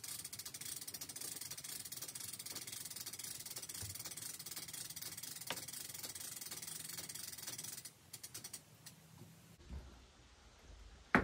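Winch lowering a camper roof on a rope, giving a rapid, even clicking that stops about eight seconds in, followed by a few scattered clicks.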